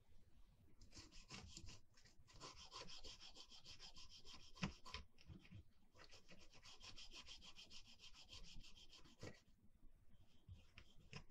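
A toothbrush scrubbing the dirty fader tracks and circuit board of a Behringer mixer in rapid back-and-forth strokes. The scrubbing comes in two long spells with a short break in the middle, and there is one sharp tap about four and a half seconds in.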